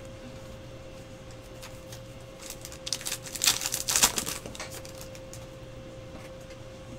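Trading cards being handled and flicked through by hand: a cluster of light clicks and rustles in the middle, over a faint steady hum.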